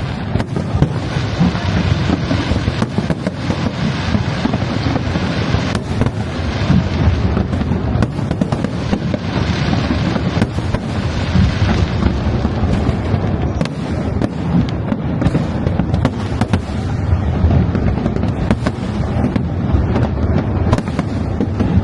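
Aerial fireworks going off in quick succession: many overlapping bangs and booms over a continuous low rumble, busiest in the first half.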